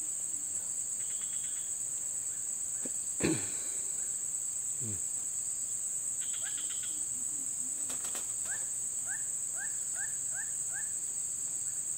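Steady high-pitched insect chorus, with a sharp knock about three seconds in and a run of six short chirps from about eight and a half seconds.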